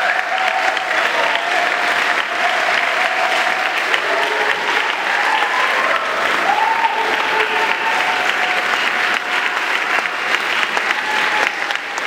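Audience applauding steadily, a dense continuous clapping with a few voices calling out over it.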